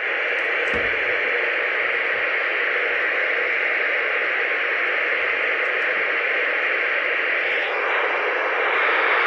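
Galaxy DX939 CB radio's receiver static playing through its speaker as a steady hiss, a little louder from about three-quarters of the way in. The audio is coming through while a speaker plug is suspected of being faulty.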